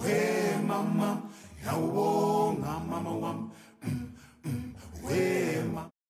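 A cappella vocal music: unaccompanied voices singing, which cut off abruptly just before the end.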